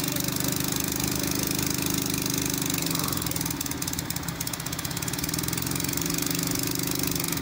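A diesel engine running steadily on site, its note sagging slightly a few seconds in and picking back up near the end.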